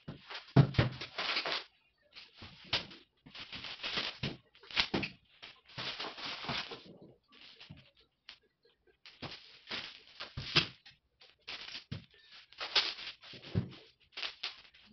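Plastic sheeting rustling and crinkling in irregular bursts as a large framed painting is wrapped by hand, with a few dull knocks from the frame being handled, one about half a second in and one near the end.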